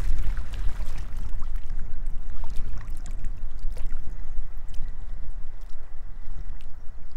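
Wind buffeting the microphone in an uneven low rumble, over small waves lapping and splashing against the lake bank.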